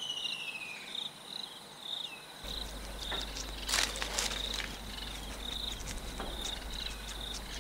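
Crickets chirping: a short high trill repeating about twice a second, over soft crackling rustles with a louder crackle about four seconds in. A low hum comes in about two and a half seconds in.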